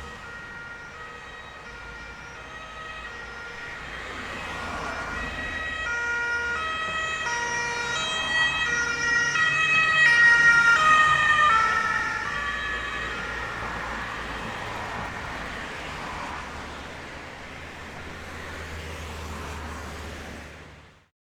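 Ambulance siren approaching and passing over a low traffic rumble. Its warbling tones grow to their loudest about halfway through, dip slightly in pitch as it goes by, then fade before cutting off near the end.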